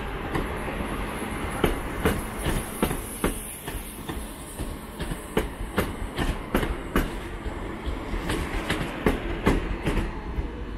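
A train rolling slowly over the station tracks, its wheels clicking irregularly, two or three times a second, over rail joints and points.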